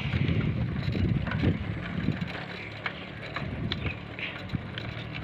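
Wind buffeting the phone's microphone as it is carried along, a gusty low rumble with a few faint clicks.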